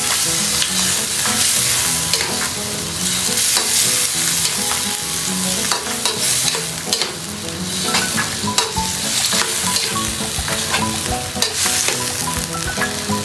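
Pork intestine stir-frying in a pan: steady sizzling, with the knocks and scrapes of a utensil stirring it.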